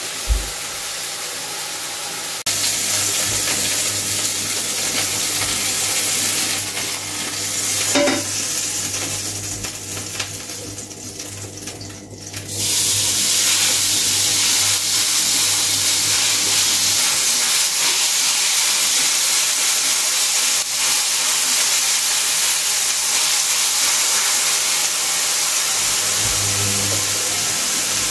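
Steady sizzle of mince-topped tortillas frying in a hot pan. It fades for a few seconds near the middle, then comes back louder and steady.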